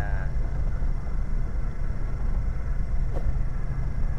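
Fishing boat's engine running steadily: a low, even drone.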